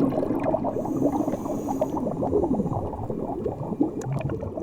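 Underwater bubbling and gurgling, a dense jumble of bubbles such as a scuba diver exhales through a regulator.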